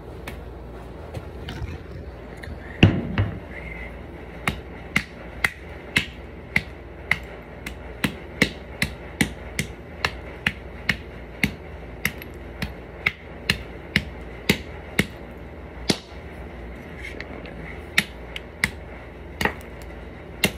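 A wooden-handled hammer repeatedly striking small white broken fragments on a concrete floor, smashing them smaller, at about two sharp hits a second, with a pause of a few seconds before the last handful. The loudest sound is one heavy thud about three seconds in.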